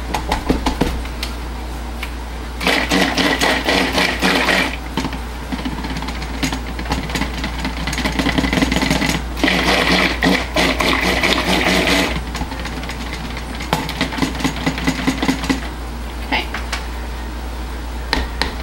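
Stick blender running in a plastic pitcher of cold-process soap batter, mixing white colour into it, in three runs of a few seconds each. The motor gives a steady whine, with scattered clicks between the runs.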